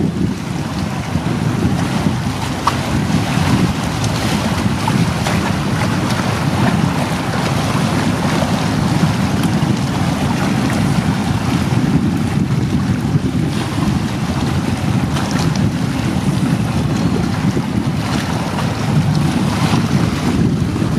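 Wind buffeting the microphone, with choppy sea water washing against the shoreline rocks.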